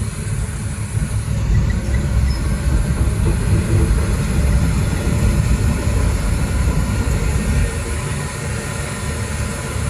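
Heavy diesel machinery running steadily, a dense low rumble with no break.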